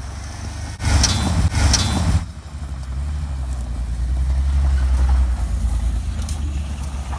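Full-size van's engine running as it drives along a dirt track and draws up close, its low rumble growing louder midway. About a second in, a loud rushing noise lasts for over a second.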